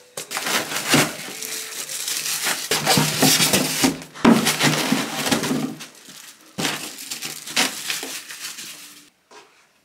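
Polystyrene foam packing inserts scraping and squeaking against a cardboard box as they are pulled out, with the box flaps and packing crackling and rustling. The sound stops abruptly about nine seconds in.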